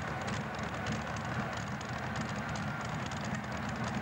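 Modified pulling tractor's engine running steadily at low revs, not revving, a dense even firing with no rise or fall in pitch.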